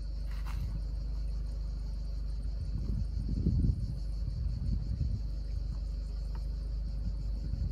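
Insects chirring in one steady high-pitched tone, over a low rumble of wind on the microphone that swells a few times about three to five seconds in.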